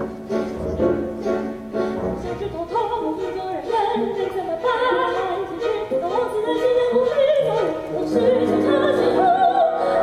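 Stage musical number: instrumental accompaniment with a high, wavering operatic singing voice that comes in about three seconds in.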